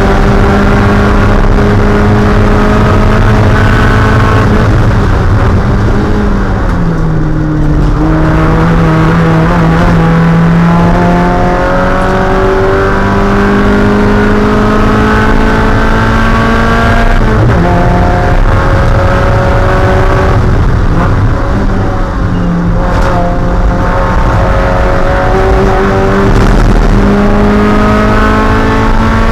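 Spec Miata's 1.8-litre four-cylinder engine under racing load, climbing in pitch through the revs and dropping back at each gear change, with a longer drop about seven seconds in as it lifts and comes down through the gears.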